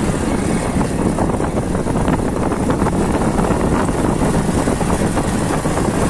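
Small motorcycle's engine running as it rides along a dirt road, a steady rough noise mixed with wind and road rumble.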